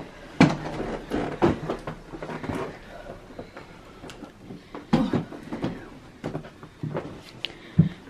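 Heavy suitcases being handled and set down: a string of irregular knocks, bumps and creaks, with a sharp thud just before the end.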